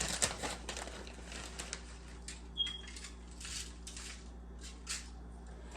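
Light scattered clicks and rustles of grated Parmesan cheese being handled and sprinkled onto a layered dish, with a brief high squeak about two and a half seconds in, over a steady low hum.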